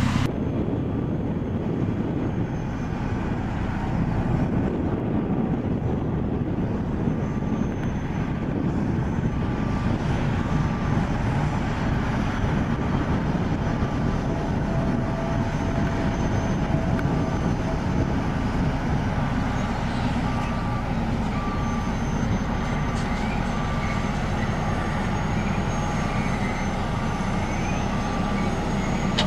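Caterpillar 631E wheel tractor-scrapers running under load, a steady, heavy diesel engine sound as they haul and load dirt. A faint beep repeats in the background every second or two through the second half.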